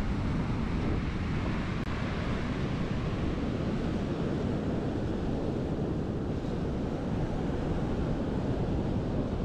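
Ocean surf breaking on a beach, a steady wash of noise, with wind buffeting the microphone.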